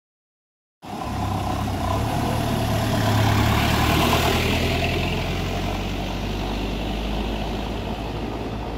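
A heavy engine running with a deep steady hum under a broad rushing noise, starting abruptly just under a second in, loudest around three to four seconds in, then easing a little.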